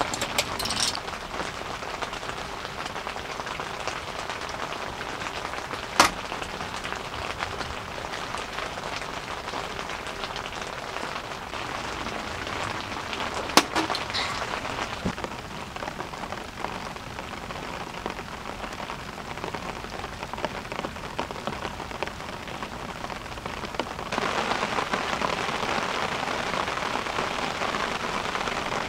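Heavy rain pattering steadily on a tent, with two sharp clinks of a glass bottle or glass on the table about six and fourteen seconds in. From about 24 seconds in the rain is louder and brighter, heard from outside the tent.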